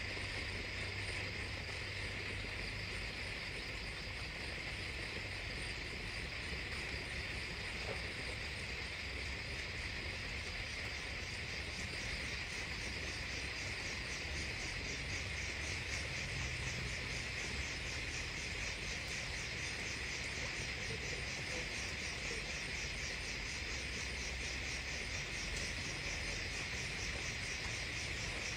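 Night insects, crickets among them, chirping in a steady, unbroken chorus, with a fast pulsing trill higher up joining in partway through.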